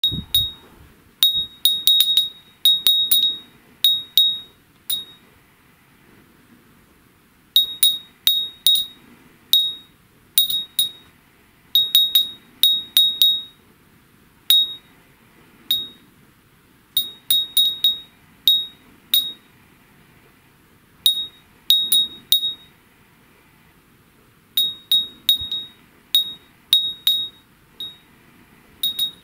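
A slender hand-blown Tsugaru Vidro glass wind chime (fūrin) ringing as its clapper strikes the glass. It gives flurries of quick, bright clinks on one high, clear note, each with a short ring. Pauses of a second or more fall between the flurries.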